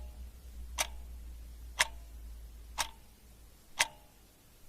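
A clock ticking, one sharp tick about every second, each with a brief ringing tone.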